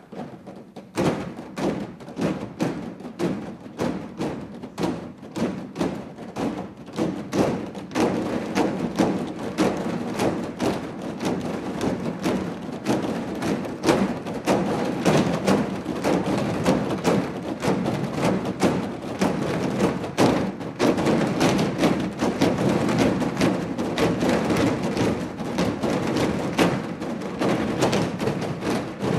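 A large group of players hand-drumming on black recycling bins: a dense, rhythmic run of thumps and slaps that starts about a second in and grows louder about eight seconds in.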